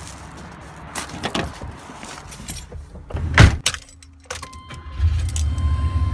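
Keys jangling and clicks of someone getting into a vehicle, with a car door shutting in one loud thump about three and a half seconds in. A steady warning chime tone comes on, and the engine starts and runs with a low steady hum near the end.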